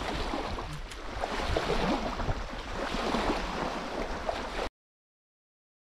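Wind buffeting the microphone over water lapping at the reservoir's edge, cutting off suddenly into silence a little before the end.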